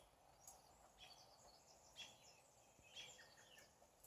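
Faint morning birdsong: several birds giving short, high chirps and call notes scattered through, over a quiet outdoor hush.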